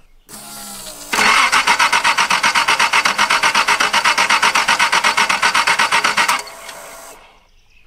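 Datsun's fuel-injected Nissan OHC straight-six being cranked by the starter without firing: a short whine, then about five seconds of fast, even chugging that stops abruptly. The engine does not catch, a no-start that the owner puts down to an unplugged jumper wire that probably fed the ECU.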